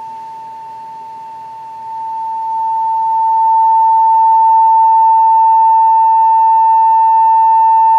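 A field-coil loudspeaker from a 1949 Westinghouse H-104 radio plays a steady single-pitched test tone from an audio generator. About two seconds in, the tone grows much louder as DC current on the field coil is raised to 200 mA, magnetizing it. The speaker is working properly even though the field coil measures about 22% below its specified resistance.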